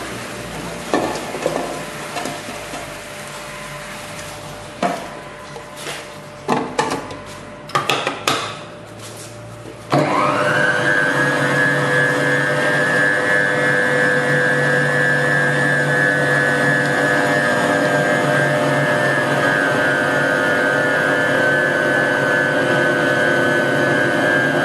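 Stainless-steel QS-9J bowl chopper: scattered knocks and clunks of metal bowl and lid as greens are loaded and the lid is fitted. About ten seconds in, its 0.65 kW motor switches on, rising briefly in pitch, then runs with a steady whine as the blade spins through the greens.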